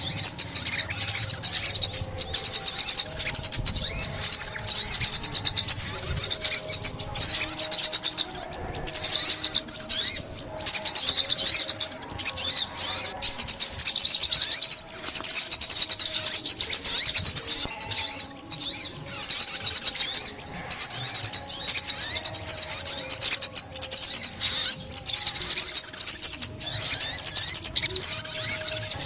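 Sunbird song: a fast, high-pitched stream of twittering chirps, almost unbroken, with a few short pauses.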